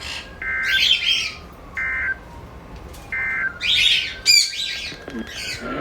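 Three short, identical bursts of data tone about a second and a half apart: the NOAA Weather Radio SAME end-of-message tones closing a flash flood warning broadcast. Over them a bird chirps repeatedly, with one sharp squawk near the end.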